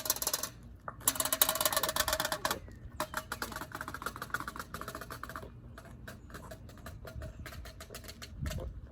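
A rapid clatter of hard clicks and rattles, loudest a second or two in and thinning out after that. It is noise made on purpose to spook a dog during training.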